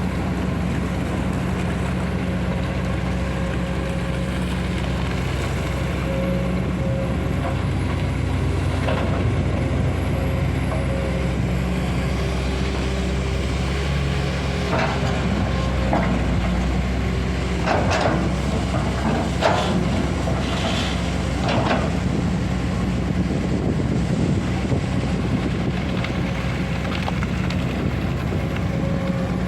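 Komatsu PC200 excavator's diesel engine running steadily during coal digging, with a handful of sharp knocks and clatters in the middle stretch.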